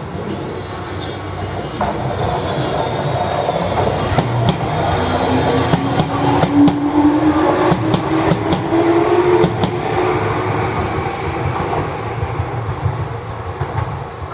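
Tokyu Ikegami Line electric commuter train passing close by. Its wheels click over the rail joints, and a motor hum rises in pitch through the middle as the noise swells to a peak and then eases off.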